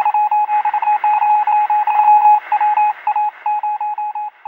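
Morse code beeping: one steady, high beep keyed on and off in quick short and long pulses, over a faint hiss like radio static.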